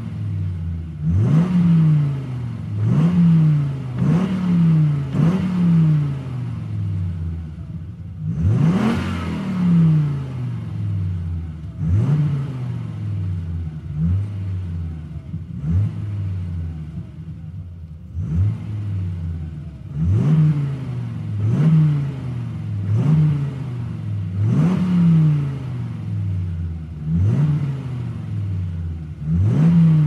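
Sports car engine being revved in short throttle blips. The revs rise sharply and fall back to idle about every one and a half to two seconds, with one bigger, higher rev about nine seconds in.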